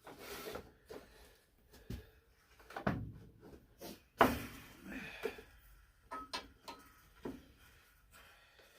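Wooden hive frame parts being handled and set into a wooden assembly jig: scattered light knocks and clatters, with a few brief squeaks about six seconds in.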